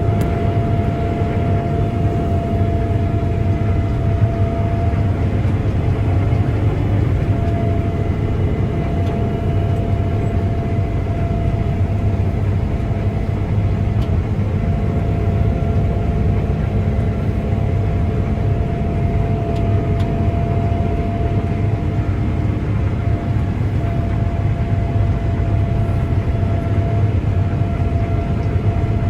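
Heavy harvest machinery running steadily under load: a deep, even engine drone with a thin, steady whine above it.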